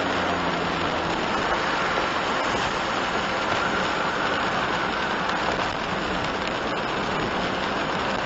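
Steady rain hitting a moving kei van's windshield and body, mixed with the hiss of tyres on the wet road, heard from inside the cabin.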